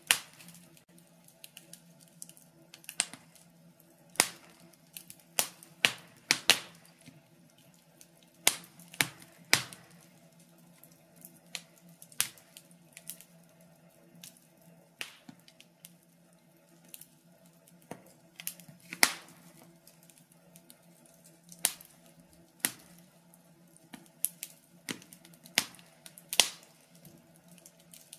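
Wood fire crackling: irregular sharp pops and snaps, one or two every second or so, some much louder than the rest, over a faint steady hum.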